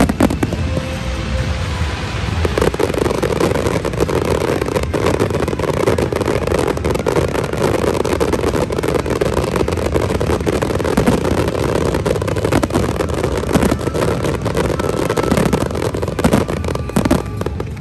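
Dense fireworks barrage: a sharp bang right at the start, then a continuous rumble of many overlapping bursts and crackles that thickens about two and a half seconds in and keeps up without a break.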